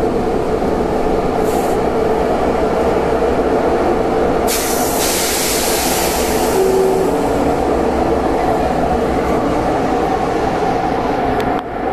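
Athens metro Line 1 train running with a steady loud rumble and hum. A short hiss comes about one and a half seconds in, and a louder hiss starts a few seconds later and slowly fades.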